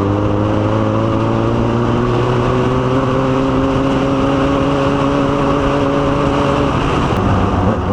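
Motorcycle engine running under steady throttle, its pitch rising slowly, then dropping away near the end, over rushing wind noise.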